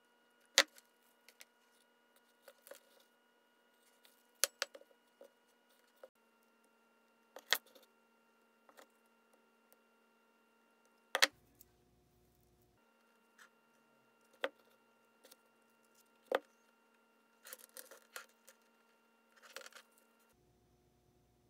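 Sharp clicks and small metallic clinks from needle-nose pliers and little metal jewelry findings, a crimp end and clasp, being pressed onto a braided leather cord. The clicks come singly a few seconds apart, then in a quicker cluster near the end.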